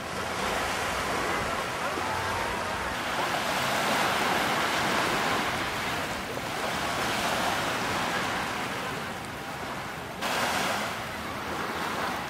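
Sea surf: small waves washing onto a sandy beach, a continuous hiss that swells and ebbs every few seconds, with some wind on the microphone.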